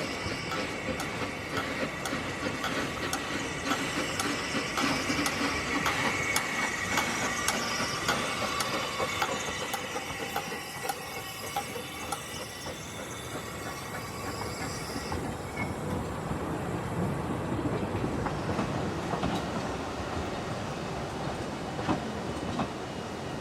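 Narrow-gauge train running on the rails, its wheels clicking over the rail joints with a steady high squeal from the wheels. After about fifteen seconds the clicking and squeal fade and a lower rumble takes over.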